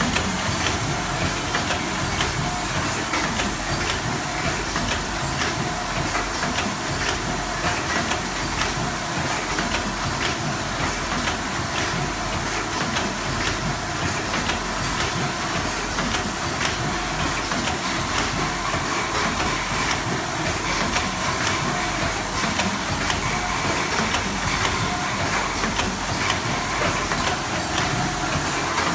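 Automatic triangular nylon-mesh tea bag packing machine running steadily: rapid, continuous clicking and clattering over a steady hiss.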